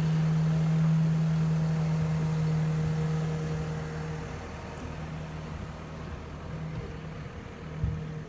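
Diesel engine of a Gradall telehandler running with a steady hum, loudest for the first four seconds and then easing off. A single knock comes near the end.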